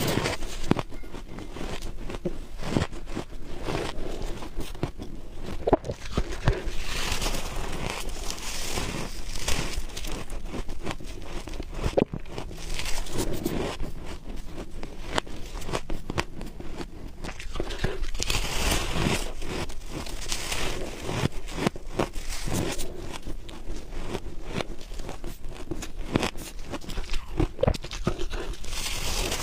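Close-miked biting and chewing of soft, squeaky freezer frost: an irregular run of crunches and crumbling bites, one after another.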